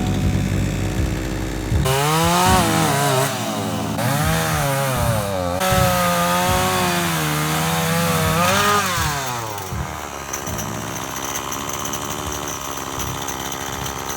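Two-stroke chainsaw cutting into a large log. About two seconds in it revs up, and its pitch sags and recovers again and again as the chain bites under load. It eases off into a steadier, quieter run for the last few seconds.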